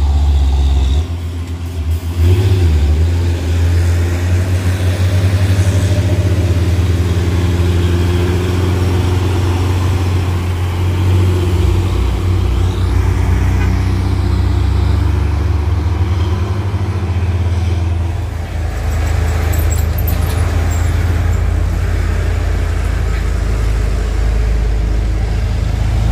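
Heavy tanker trucks' diesel engines running hard on a steep climb: a deep, steady, loud engine note that dips briefly about a second in and again near 18 seconds.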